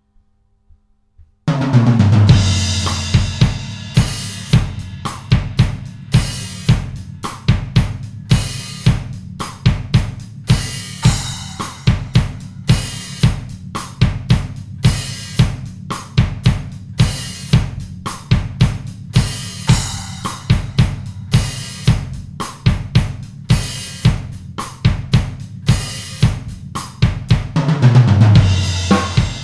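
Acoustic drum kit played alone, with no other instruments. About a second and a half in it comes in hard with a cymbal crash and kick drum, then settles into a steady rock beat of kick, snare and cymbals, with another run of cymbal crashes near the end.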